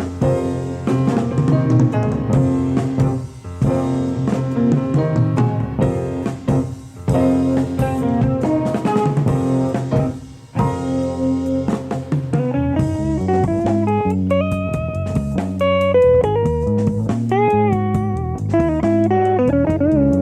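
Live 1970s jazz-fusion band playing, recorded off an FM broadcast onto cassette tape. Drums and guitar chords fill the first part; from about twelve seconds in, an electric guitar takes a single-note lead with string bends and vibrato over bass.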